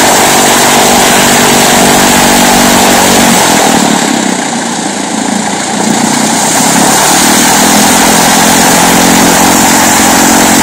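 Cessna 152's Lycoming four-cylinder engine and propeller running at taxi power, heard close up. The steady engine note dips briefly about halfway through, then returns to full level.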